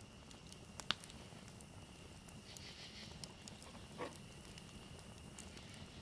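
Faint scattered clicks and crackles over a low steady hum and a faint high tone, with one sharper click about a second in.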